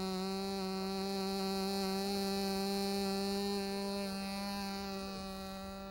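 Radio-controlled model plane's small engine running at full throttle, a steady high buzz held ready for a hand launch; it grows a little fainter over the last two seconds.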